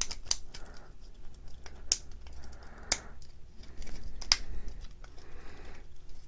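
PLA support material being picked and snapped off a 3D-printed model: irregular sharp clicks and cracks, with a few short bouts of scraping.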